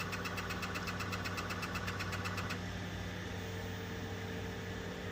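3D printer running: a steady machine hum with a fast, even ticking that stops abruptly about two and a half seconds in, followed by a faint steady tone.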